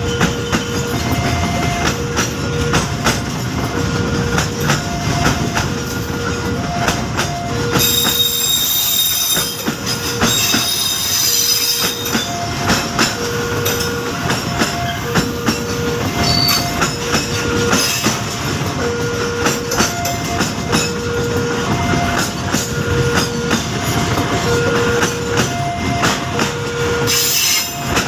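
Container freight wagons rolling past close by, wheels clattering over the rail joints, with high wheel squeal about 8 seconds in and again near the end. A steady two-note tone alternates in the background, about once a second.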